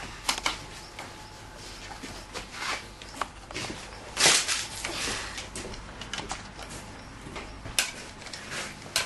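Scattered clicks, knocks and rustles of hands and a wrench working at a dirt bike's front wheel axle and hub, with one louder noise about four seconds in.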